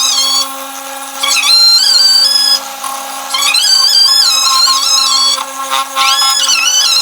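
Background music: a high melody moving in short stepped phrases over a steady held drone.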